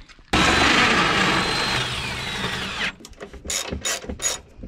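A Ryobi cordless drill runs for about two and a half seconds, its whine falling in pitch just before it stops. Then a hand ratchet clicks steadily, about five clicks a second, as the winch cover fasteners are worked loose.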